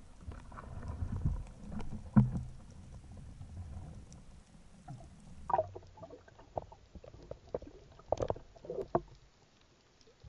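Muffled underwater sound around a spearfisher: a low rumble of water movement, with scattered knocks and clicks from the speargun, shaft and line being handled. The sharpest knock comes about two seconds in, and more come later.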